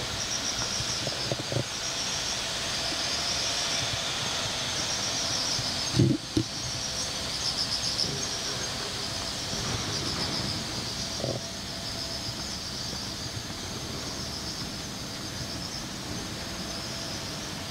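A chorus of cicadas buzzing in a high, pulsing drone, with two low thumps about six seconds in.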